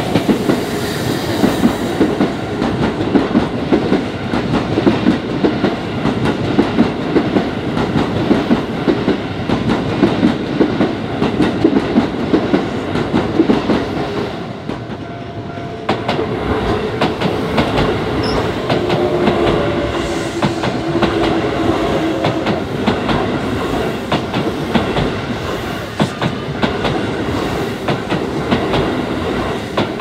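Keisei Line electric trains passing over a level crossing, wheels clacking rhythmically over the rail joints, first one train and then, from about halfway, another coming up and passing close by. The crossing's warning bell keeps ringing.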